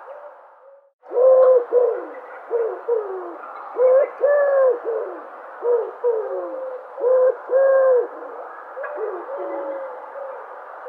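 Dove cooing: a run of short, low coo notes, many falling in pitch at the end and some overlapping, over a steady background hiss. The sound drops out briefly about a second in, then the cooing resumes.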